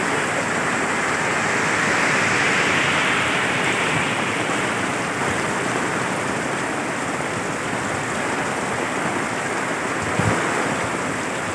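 Heavy rain pouring down, a steady, even rushing hiss.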